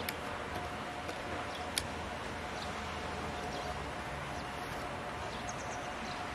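EF63 electric locomotive moving slowly through a yard: a steady low hum with a faint steady tone. Two sharp clicks come, one right at the start and one just under two seconds in. Faint bird chirps are heard.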